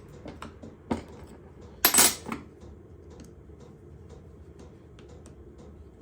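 Metal parts and hand tools clinking and clattering as a cast-iron cross vice is taken apart. There is a sharp click about a second in, a louder metallic clatter around two seconds, then only faint ticks.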